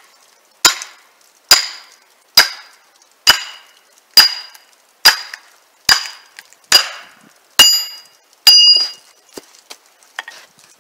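Sledgehammer striking a steel splitting wedge driven into a firewood log: ten sharp metal-on-metal blows about one a second, the last two ringing with a clear tone, then only faint small clicks.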